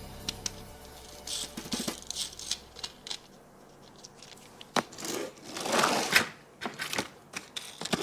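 Toy packaging being handled, with scattered sharp clicks and a few short crinkling rustles.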